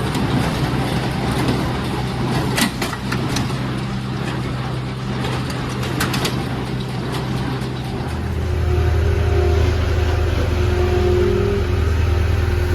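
Tractor engine running steadily under load while driving a John Deere 328 square baler. A few sharp knocks come from the machinery in the first half, and about two-thirds of the way through the engine note drops lower and grows louder.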